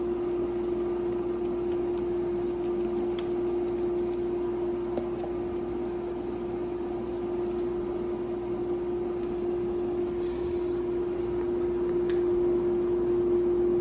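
A steady one-note electrical hum, like a kitchen appliance or fan motor, over a faint hiss, with a few light clicks of handling.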